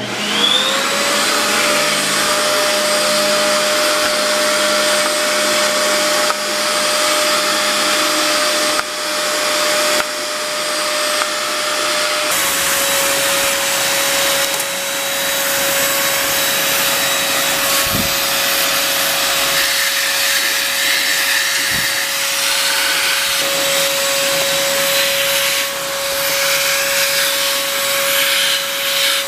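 Vacuum cleaner switching on, its motor whine rising quickly to speed, then running loudly and steadily. The whine drops slightly in pitch about twelve seconds in.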